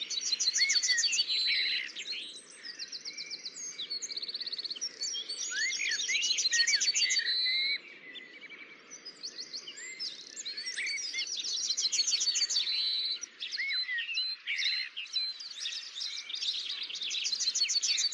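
Several birds chirping and singing together: fast rattling trills, short swooping whistles and repeated chirps, over a faint low hiss.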